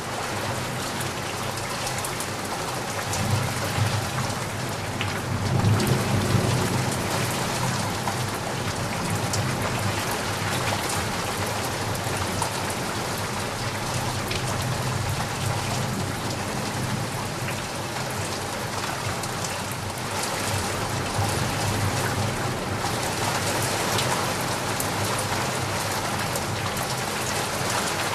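Heavy rain falling steadily, with a low rumble of thunder that swells a few seconds in and fades.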